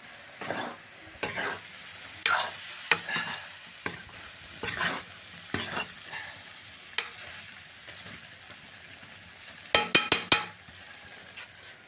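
A steel ladle stirs and scrapes vegetables in a black iron kadhai over a steady high sizzle of frying. The strokes come roughly once a second, with a quick run of several strokes near the end.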